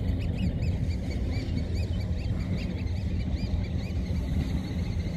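A flock of birds calling: many short, arched chirps overlapping and repeating several times a second, over a steady low rumble of boat engines out on the water.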